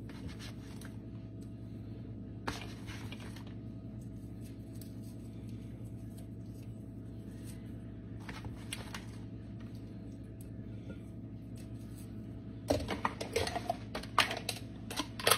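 Quiet kitchen handling over a steady low hum: a couple of brief rustles, then near the end a burst of clicks and scrapes as a plastic sour cream tub is handled and opened beside a glass mixing bowl.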